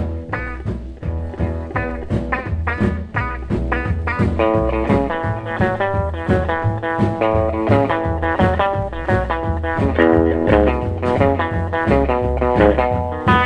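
Background music: an instrumental break in an upbeat blues-swing song, with guitar over a steady bass beat.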